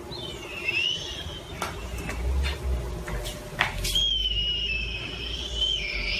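A high whistling tone: a short gliding phrase that dips and rises, then from about four seconds in a long held note that climbs in pitch near the end, over a few sharp handling knocks and a low rumble.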